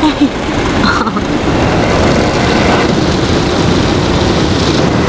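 Automatic soft-touch car wash: spinning cloth brushes scrubbing the car's side with soapy water, heard from inside the car's cabin as a steady rushing noise.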